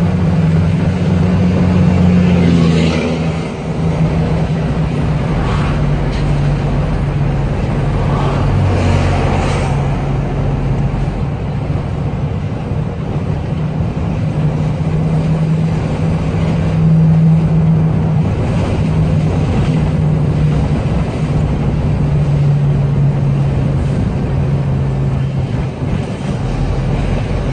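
Heavy diesel truck engine running steadily on a long downhill grade, heard from inside the cab, with a brief dip in loudness about three and a half seconds in.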